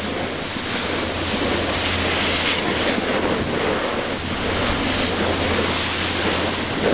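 Steady rushing noise of wind buffeting the camcorder microphone as the camera moves down a snowy slope.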